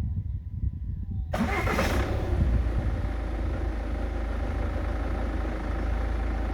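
Ford Mondeo Mk5 2.0-litre diesel engine restarting under auto start-stop: a low rumble, then the engine cranks and catches suddenly about a second in, and runs steadily at idle.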